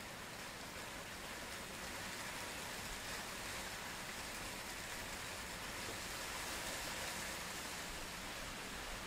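Heavy rain falling on a pond: a steady, even hiss.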